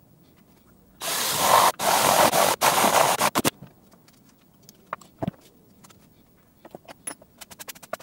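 Cordless drill boring through a plastic project box in a few short bursts about a second in, lasting two to three seconds. Light clicks and taps of parts being handled follow, with a quick run of them near the end.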